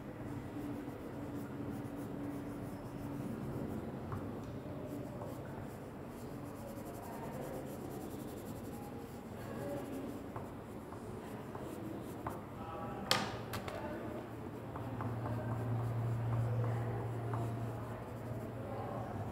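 Sky-blue wax crayon rubbing and scribbling on paper as an area is shaded in. A single sharp click comes about 13 seconds in, and a low hum swells in the background near the end.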